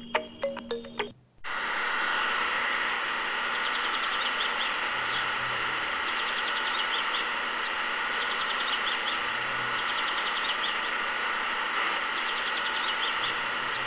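A small electric pump motor runs steadily with a hiss and a thin whine, while birds chirp in short runs behind it. A clinking music jingle cuts off about a second in, just before the pump sound starts.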